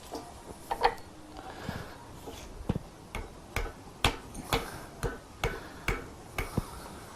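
Rubber mallet tapping a chilled rear main bearing cap into an MGB engine block, a series of light, sharp taps about two a second. The tight-fitting cap is tapped in gently rather than struck metal on metal.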